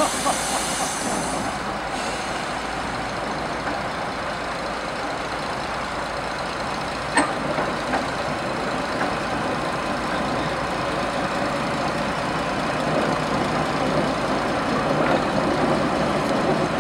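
Diesel shunting locomotive engine running steadily as the coupled pair of small locomotives roll slowly along the track, with one sharp clank about seven seconds in. It grows a little louder near the end.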